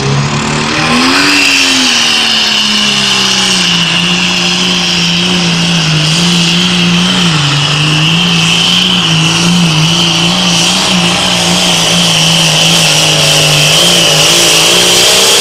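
International Harvester light limited super stock pulling tractor's turbocharged diesel engine running at full power while pulling the weight-transfer sled. Its pitch rises about a second in, then holds fairly steady with small dips, over a steady high whine.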